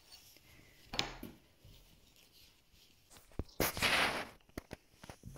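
Fabric pieces being handled and turned over by hand on a wooden table: a short rustle about a second in, then a longer, louder rustle about two-thirds of the way through, with a few light taps.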